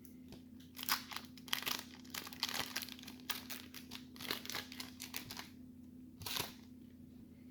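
Crinkling and tearing of a 1993 Fleer Ultra baseball card pack wrapper being ripped open by hand: a quick run of crackles for about five seconds, then one more crackle near the end.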